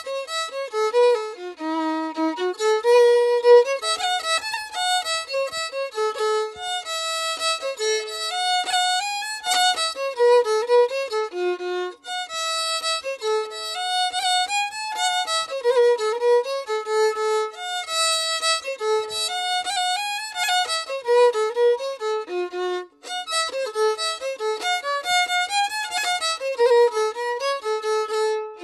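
Background music: a solo violin playing a melody, one line of notes moving up and down.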